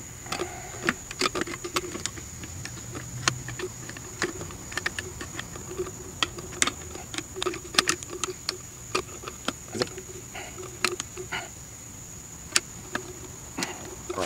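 Irregular light metallic clicks and clinks of shock-absorber mounting hardware being handled and fitted onto a new rear shock by hand. A steady high-pitched whine runs underneath.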